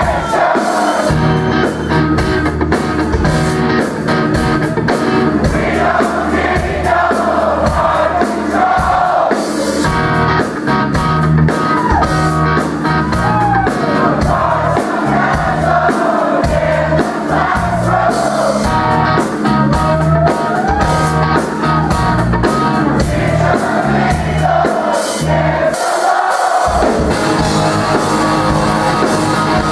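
Live rock band playing loud, with a singer's voice over electric guitars, bass and drums, captured from the audience. The low end drops out briefly about three-quarters of the way through before the band comes back in.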